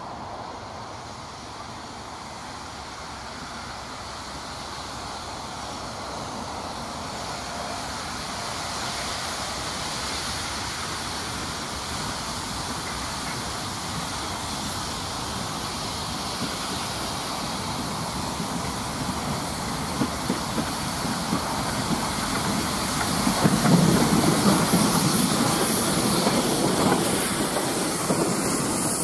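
Small steam tank locomotive hauling a freight train, growing steadily louder as it approaches and runs past close by, with a few sharp knocks. Near the end the wagons roll past, clattering over the rail joints.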